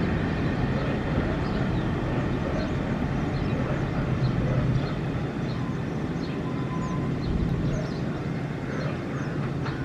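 A loaded BOXN freight train rolling away on the rails, its wagons and brake van making a steady rumble with a low hum that fades slightly as it recedes.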